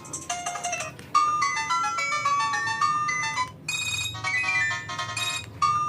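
Ringtone previews on an Itel Ace phone: short electronic ringtone melodies, each cut off abruptly as a different one starts, about three changes in a few seconds, typical of scrolling through a ringtone list.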